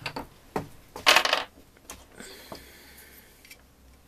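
Short copper boiler tubes clinking and rattling against each other as they are handled, loudest about a second in, then about a second of ringing metallic scrape as a tube is worked into a hole in the copper firebox tube.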